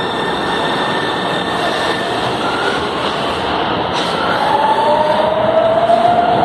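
São Paulo Metro train rolling past the platform, its cars running by with a steady rumble. Partway through, a traction-motor whine comes in and rises in pitch as the train gathers speed.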